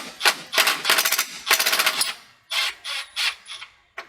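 Power driver snugging down the grille's mounting bolts, run in a series of short bursts of rapid hammering, the last few shorter and lighter.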